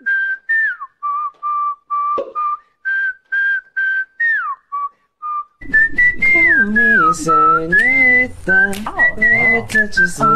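A person whistling a tune through pursed lips: short, clear separate notes, some held and some sliding, with brief gaps. About halfway through it gives way to a louder high-pitched voice that slides up and down, with a few clicks.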